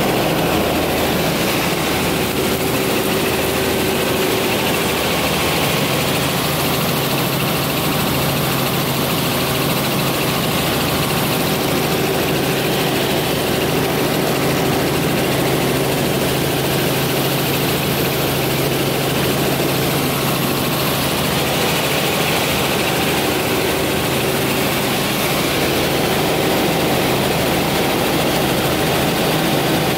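Tour helicopter in cruising flight, heard from inside the cabin: a steady, even drone of engine and rotor with a low hum.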